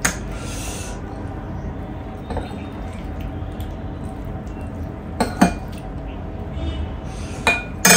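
Tableware clinking: a steel spoon, steel plate and glass knocked together while eating, as scattered sharp clinks with a louder cluster near the end.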